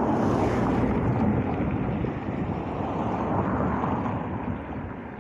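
Wind gusting across the microphone: a loud rush that swells at the start and eases toward the end.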